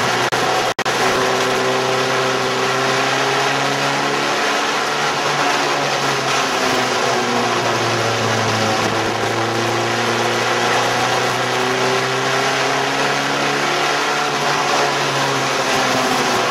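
Race car engines running on an oval track, their pitch rising and falling in long sweeps over several seconds. The sound cuts out briefly just under a second in.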